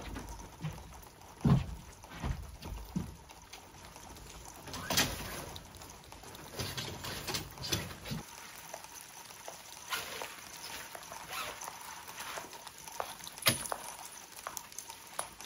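Light rain pattering, with scattered clicks, knocks and rustles as tent fabric and tent poles are handled.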